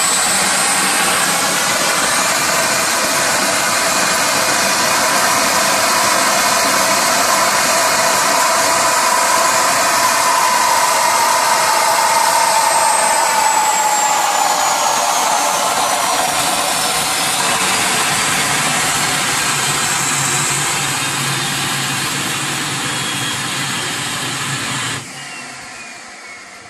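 Homemade turbocharger gas turbine running with a loud rushing roar and a high turbine whine. From about halfway the whine falls steadily in pitch as the turbine slows, and near the end the roar cuts off suddenly while the whine keeps falling and fading.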